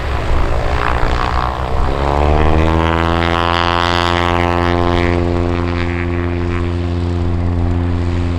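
Mooney M20J's four-cylinder Lycoming engine and propeller at full takeoff power, a loud buzzing drone. Its pitch drops as the plane passes, about one to three seconds in, then holds steady as it moves away.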